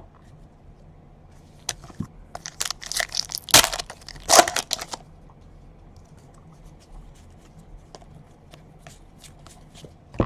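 A trading card pack's foil wrapper being torn open and crinkled, in a dense run of crackling about two to five seconds in, followed by scattered light ticks of cards being handled.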